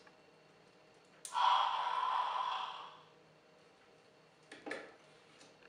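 Electronic lion roar from the Transformers Dark Ligerjack (Nemesis Breaker) toy's sound feature, set off by a button in its lion-mode head. It plays once through the toy's small speaker, starting about a second in and fading out over about two seconds. Two short clicks follow near the end.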